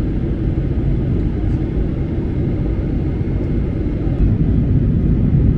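Airliner cabin noise: a steady low rumble of the jet engines and airflow, growing a little louder about four seconds in.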